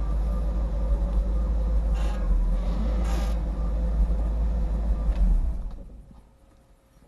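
Low, steady rumble of a car driving on snowy roads, with a few brief hissing swishes, one about two seconds in and one about three seconds in. The sound fades out over the last second and a half.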